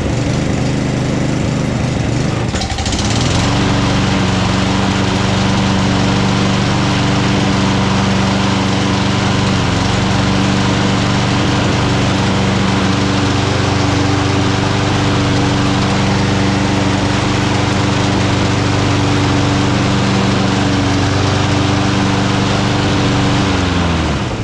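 Honda GCV200 single-cylinder lawn mower engine running just after starting. It is unsteady for the first few seconds, then settles into a steady run, and winds down to a stop near the end. Its carburetor has just been cleaned, and it runs well.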